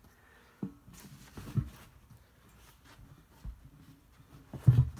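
A few short, dull knocks and handling noises from tire irons working a tire bead off a steel rim, the loudest near the end.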